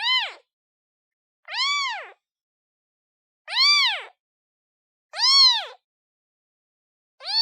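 Day-old kitten meowing, calling for its mother: about five short, high meows a little under two seconds apart, each rising then falling in pitch, with silence between them.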